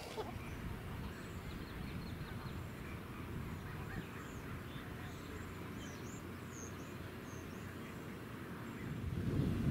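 Steady low outdoor rumble, with faint high bird chirps several times around the middle.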